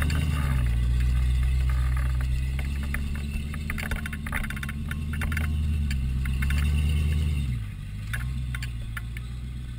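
4x4 engine running at steady low revs while crawling up a rocky trail, with scattered clicks and scrapes of rock under the tyres. Near the end the engine eases off to a lower, quieter note.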